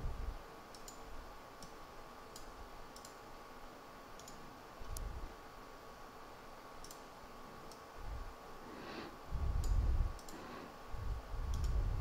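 Computer mouse clicking, a dozen or so sharp, scattered clicks, with a few low dull thumps in the second half over a faint steady hum.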